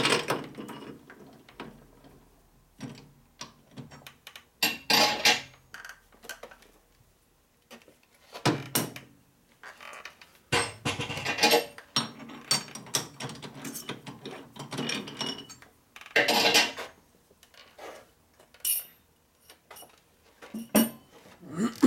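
Metal tools and lathe parts being handled: scattered metallic clanks, clicks and rattles as the toolpost and chuck of a metal lathe are worked by hand.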